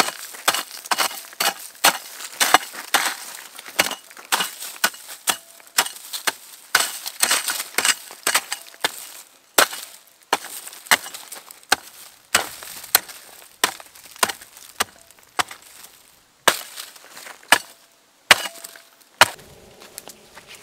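A blade hacking into wood again and again: an irregular run of sharp chops, about one to three a second, with a splintering crackle between strikes. Woody stems are being cut.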